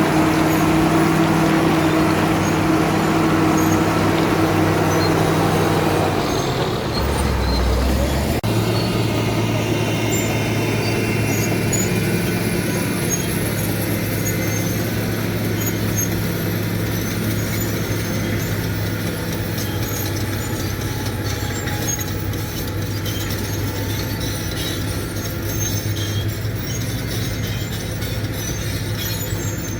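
Caterpillar D7 bulldozer's diesel engine running steadily. About six to eight seconds in its note drops, then it runs on at a lower steady pitch.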